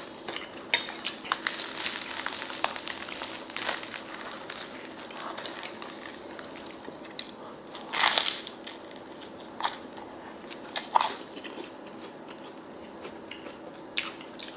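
Close-miked eating of a crusty baguette: the crust crackles and crunches as it is torn and chewed. A dense patch of crackling comes in the first few seconds, a louder crunch about eight seconds in, and a few sharp clicks after that.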